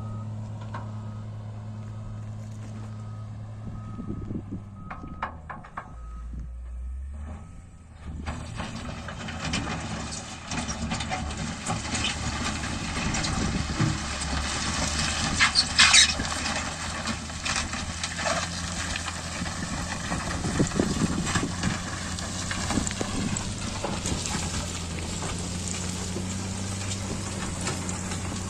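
Heavy diesel engine running steadily, with louder mechanical noise and scattered knocks from about a third of the way in.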